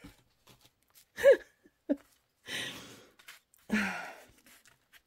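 A woman's short hum about a second in, then two breathy exhales, with faint rustling of paper pages being turned.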